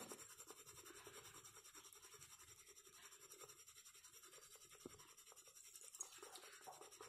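Faint, repeated scraping of a soaked, peeled almond rubbed against the inside of a small unglazed clay pot with a few drops of water, grinding it down.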